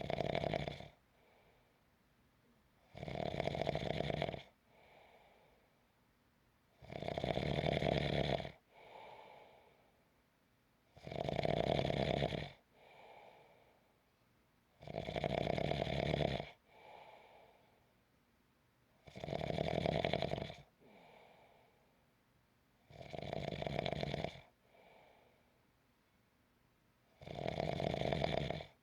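Steady snoring: a loud snore about every four seconds, eight in all, each lasting about a second and a half and followed by a fainter breath.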